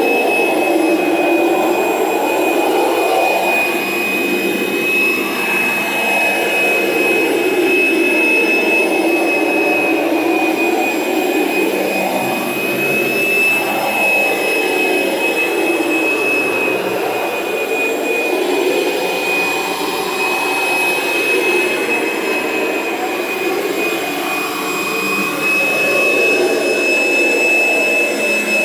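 Kirby Generation 3 upright vacuum motor running steadily with its carpet shampooer attached, a constant high-pitched whine over a rushing air sound that swells and eases every few seconds as the machine works back and forth over the carpet.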